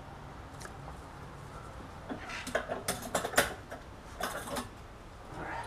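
Irregular metallic clinks and clatter of hand tools and metal fittings being worked in a car's engine bay, a cluster about two seconds in and another short one just after four seconds.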